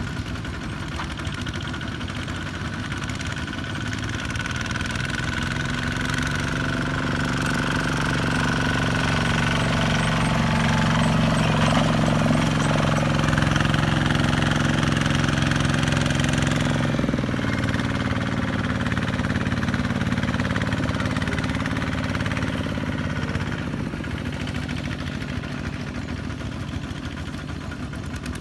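Kubota ZT-140 single-cylinder diesel engines of two-wheel walking tractors running steadily while hauling trailers loaded with rice sacks. One passes close, growing louder to about halfway and then easing off.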